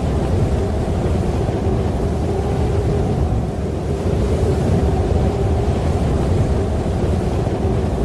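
Steady, loud rush of wind in a snowstorm, deep and unbroken.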